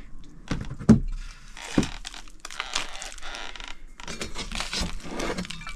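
Glass wine bottles being handled in a slatted wooden rack: a few sharp knocks of glass on wood, the loudest about a second in, with scraping and rustling between them.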